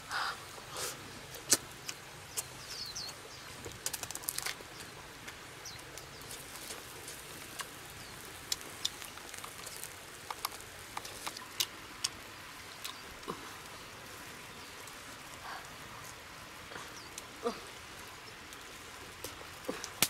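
Close-up eating sounds: wet lip smacks, chewing and fingers picking at grilled fish, heard as scattered short clicks and smacks with no talk.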